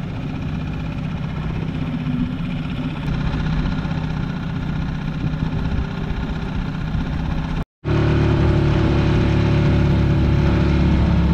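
Honda four-stroke outboard motor running steadily as the small boat travels. A brief gap about two-thirds of the way through, after which it runs louder.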